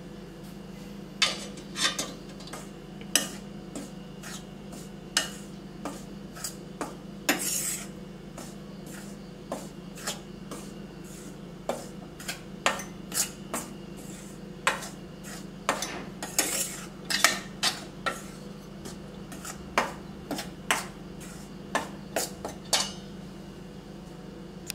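Steel spoon clinking and scraping against a stainless steel kadai while stirring wheat flour: irregular knocks and short scrapes, one or two a second, over a steady low hum.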